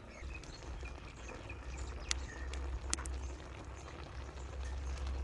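Wok of noodles and sauce cooking over an open wood fire, with a faint fizzing, a few sharp clicks about two and three seconds in, and a low rumble that grows stronger toward the end.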